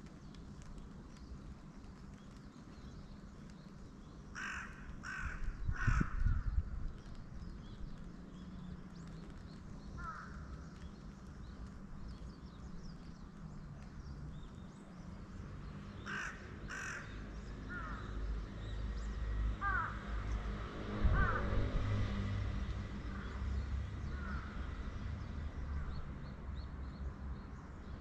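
Crows cawing: three caws about four seconds in and two more about sixteen seconds in, with short chirps of small birds between them over a low steady rumble.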